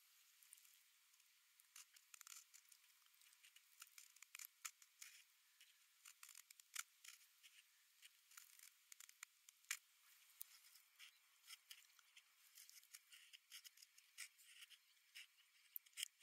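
Beaver-incisor carving tool cutting into a peeled wooden stick. It makes a faint, irregular run of short scrapes and clicks, several a second, as small shavings are raised.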